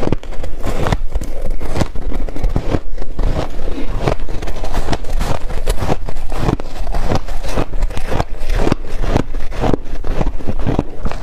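Chewing a mouthful of shaved ice: a loud, dense run of crisp crunches and crackles.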